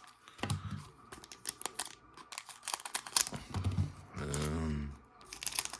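Scissors snipping and the plastic sleeve of a Pokémon card booster pack crinkling, a run of quick clicks and rustles. About four seconds in, a short low vocal sound rises over them.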